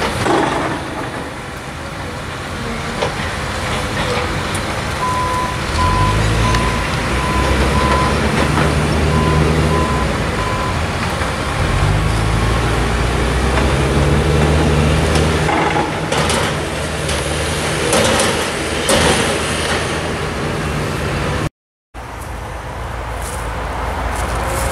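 Caterpillar hydraulic excavator's diesel engine working, its note rising and falling as the load changes. About five seconds in, a high warning beeper sounds repeatedly for several seconds. The sound drops out abruptly near the end.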